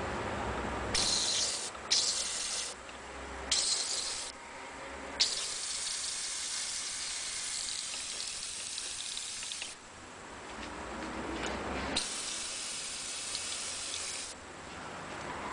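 Paint being sprayed onto a miniature figure in hissing bursts. There are three short bursts, then a long spray of about four and a half seconds, and another of about two seconds near the end.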